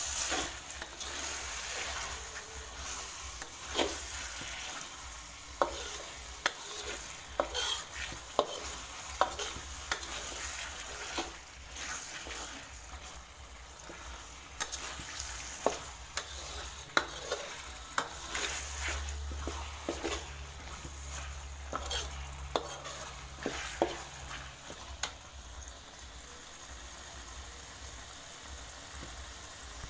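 Ground spice paste with leaves frying in oil in a wok, sizzling steadily while a spatula stirs it, with irregular clicks and scrapes of the spatula against the wok. The paste is being sautéed until fragrant.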